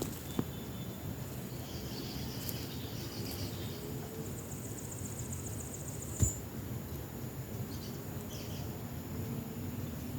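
Outdoor farm ambience: a low rumble with scattered bird chirps and a rapid, high, evenly pulsed trill in the middle, broken by one sharp knock about six seconds in.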